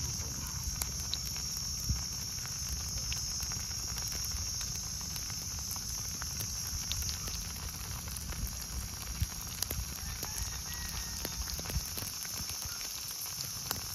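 Egg dosa batter and oil sizzling in a hot iron pan: a steady high hiss with scattered small pops and crackles.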